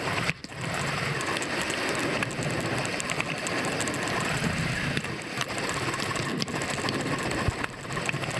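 Bicycle rear-hub freewheel ticking rapidly as the wheel turns without pedalling, over a steady rush of road and wind noise.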